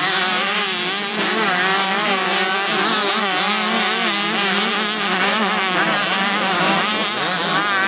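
Several motocross bikes racing together, their engines revving up and down at different overlapping pitches.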